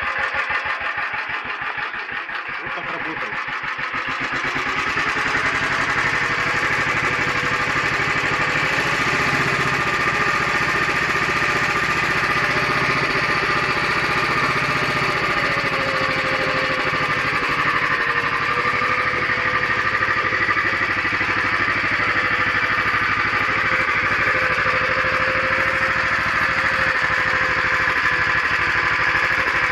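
Motor Sich walk-behind tractor engine running and driving a potato digger's shaking sieve. The engine speeds up over the first few seconds, then runs steadily.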